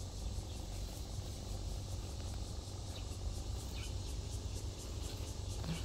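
Outdoor garden ambience: insects such as crickets chirping steadily in a high register over a steady low rumble, with a few faint short chirps or ticks.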